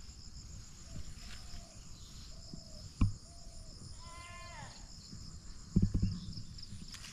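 Steady high insect chirring, with a string of short arched calls early on and one louder animal call about four seconds in that falls away at its end. Dull low thumps come about three seconds in and again near six seconds.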